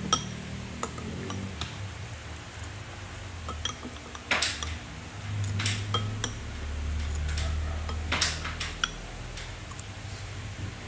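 A toddler's baby spoon clicking and scraping against her baby bowl as she scoops rice, about a dozen small irregular taps, the loudest about halfway through and again near the end, over a steady low hum.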